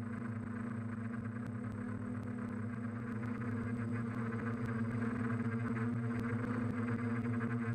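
DJI F550 hexacopter's six electric motors and propellers humming steadily in flight, heard from the onboard camera. The hum grows a little louder about halfway through.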